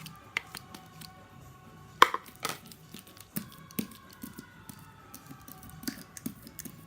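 Homemade glue slime being mixed and handled: irregular sticky clicks and small pops, with one sharp loud click about two seconds in.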